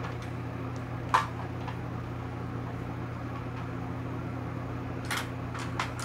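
A steady low hum with a few light clicks and taps: one about a second in and a few near the end, from makeup brushes being picked through and handled.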